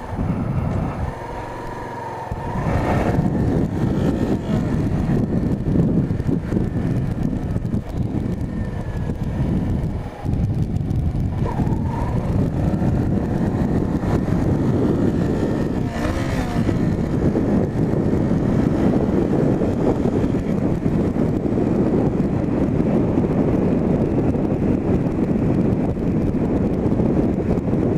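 Motorcycle engine running on the move, mixed with wind and road noise on the camera microphone; the sound steps up and gets louder about three seconds in, then holds steady.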